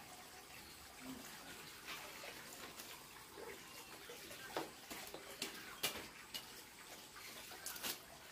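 Water running from a hose pipe into a plastic basin, with scattered splashes and light clicks as something is washed in the water.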